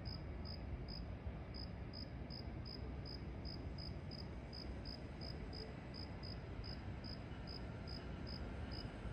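A cricket chirping steadily in short high-pitched pulses, about three a second, over a faint low rumble.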